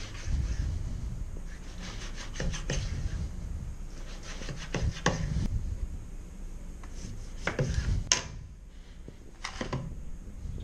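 Kitchen knife slicing fish fillets and cutting a lime on a plastic cutting board: a series of knocks and scraping strokes, with one sharp click a little past three-quarters of the way through.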